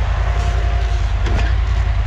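ATV engine idling with an even, low pulsing beat, and a brief noise about a second and a half in.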